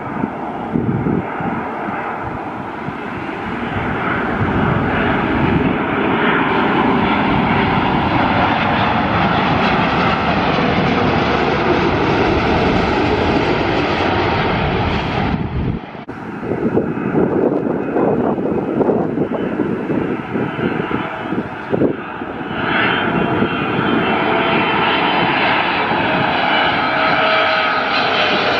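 Jet airliners on landing approach passing low overhead, a steady loud engine sound. For the first half it is a Boeing 787-9's twin turbofans. After a sudden cut about 16 seconds in, another wide-body jet follows, a Boeing 777 by the end.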